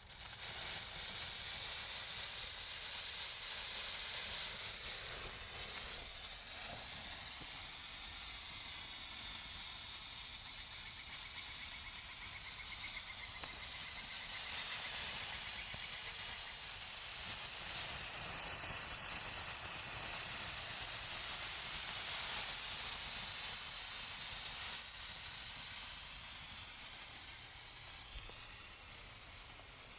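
Homemade potassium nitrate, sugar and sawdust sparkler fuse burning with a loud, steady hiss that starts suddenly and continues, the hiss shifting in pitch about two-thirds of the way through.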